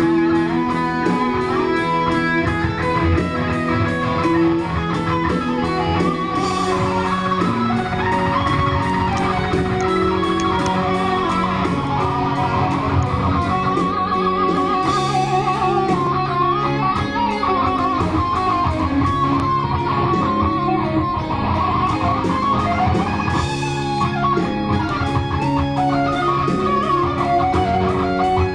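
Electric guitar playing a continuous fast melodic passage, quick picked runs over low notes held for a few seconds at a time.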